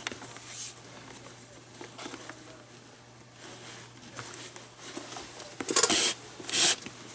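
Green baseball-glove lace being threaded through the lacing holes of a leather glove and pulled by hand: soft rubbing and handling noise, with two short, louder swishes of lace drawn through near the end.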